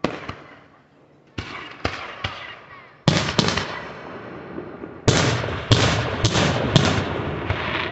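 Aerial fireworks shells bursting overhead. A few scattered bangs come first, then a louder burst about three seconds in, and from about five seconds in a quick, dense run of loud bangs.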